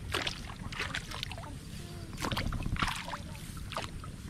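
Hands and feet splashing in the water and mud of a flooded rice paddy as seedlings are pushed into the mud: a run of irregular short wet splashes.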